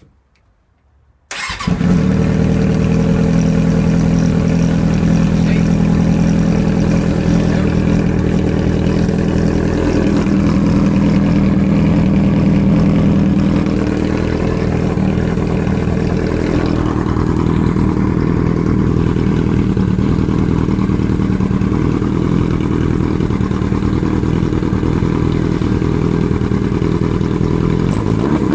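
Suzuki RF600R's 600 cc inline-four motorcycle engine, its silencer removed so it runs through an open straight pipe. The engine comes in suddenly about a second in and runs loud and steady, easing slightly about halfway.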